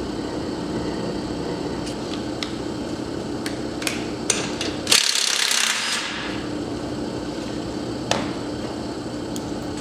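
DeWalt cordless impact driver hammering on a bolt for about a second, among scattered clicks and knocks of tools being handled.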